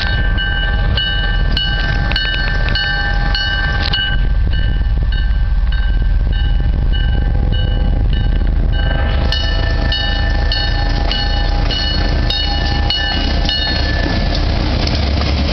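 A Canadian Pacific diesel locomotive at the head of a freight train approaches and passes close by with a heavy engine rumble. Over it a bell rings about twice a second; the ringing fades for a few seconds, comes back, and stops shortly before the end.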